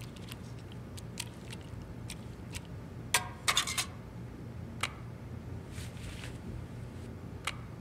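Scattered soft clicks and taps of a serving spoon and plastic lunch containers being handled, with a cluster about three seconds in and a brief cloth rustle near six seconds, over a low steady hum.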